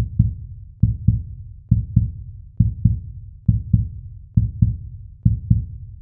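Heartbeat sound effect: deep double thumps in a steady lub-dub rhythm, seven pairs about 0.9 seconds apart.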